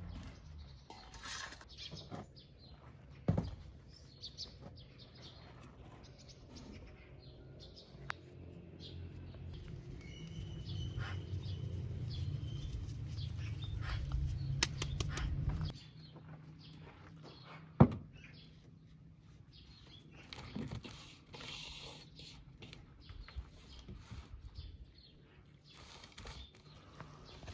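Bowls and containers being handled on a wooden table, with sharp knocks as they are set down (the loudest about eighteen seconds in), flour tipped into a large steel basin, and water poured from a glass jug near the end. Birds chirp throughout, over a low steady hum that cuts off suddenly after about sixteen seconds.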